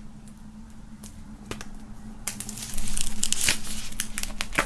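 Plastic shrink-wrap foil on a vinyl LP crinkling and tearing as a knife is drawn through it. It is faint at first, then loud and dense from about halfway in.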